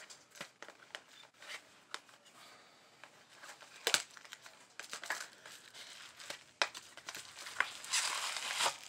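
Clear plastic shrink-wrap being crinkled and pulled off a boxed eyeshadow palette: scattered crackles and rustles, thickest near the end.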